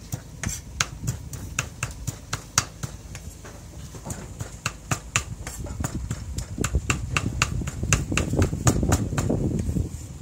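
Cleaver chopping chicken into small pieces on a round wooden chopping board: a run of sharp knocks, a few strikes a second. A low background noise grows louder over the second half.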